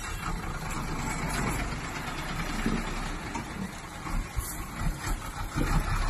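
Dump truck's diesel engine running steadily at low speed.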